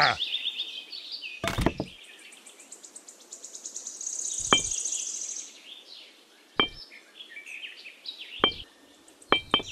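Small birds chirping and trilling in the background, with four light, sharp knocks spread through, as tiny clay bricks and a straw frame are set down.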